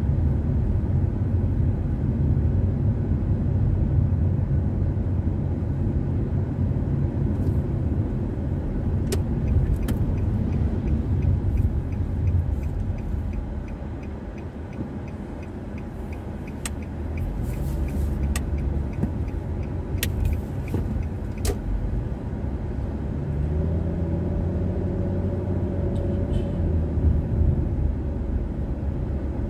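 Car driving, with steady engine and tyre rumble. It eases off briefly midway, and a run of faint regular ticks sounds in the middle. A steady pitched hum comes in near the end.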